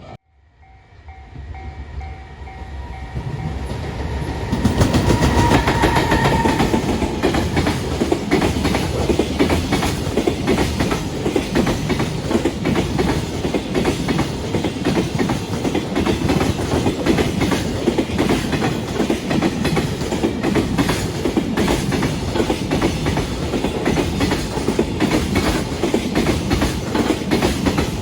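Freight train passing close by, its wheels clacking quickly and steadily over the rail joints. The sound builds over the first few seconds as the train arrives, with a brief high tone around five seconds in.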